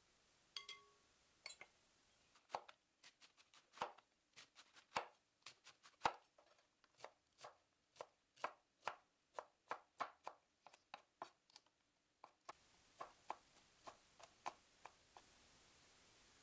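Kitchen knife chopping on a cutting board: a steady run of sharp chops, about two to three a second, stopping shortly before the end.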